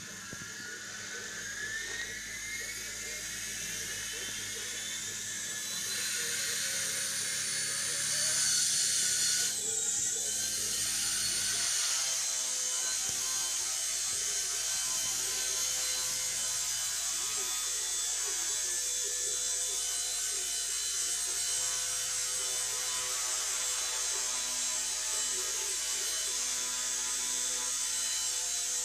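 Small electric indoor RC helicopter's rotor motor spinning up, its whine rising in pitch over the first few seconds as it lifts off, then a steady buzzing whir as it hovers.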